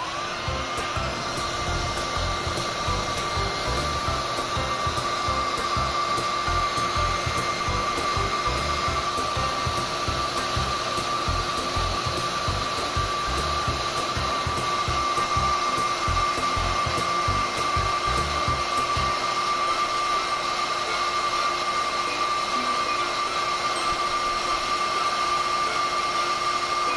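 Hair dryer running steadily, a rush of air with a steady high whine, blowing heat to soften a bicycle sticker's adhesive for peeling. A low fluttering rumble runs under it until about two-thirds of the way through, then stops.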